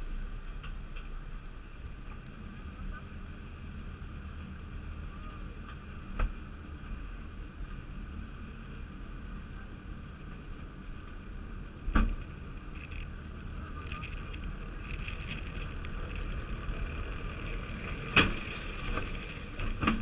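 Nessie roller coaster train climbing its chain lift hill: a steady low rumble from the lift, with a sharp clank about every six seconds.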